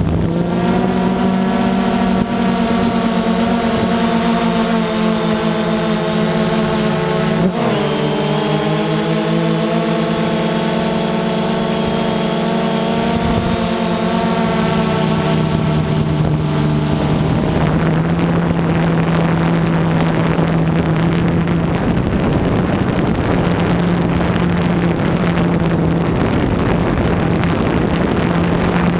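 Quadcopter drone's motors and propellers running in flight, a steady whining hum with several tones that dip and recover about seven seconds in, turning into a rougher, noisier buzz about two-thirds of the way through.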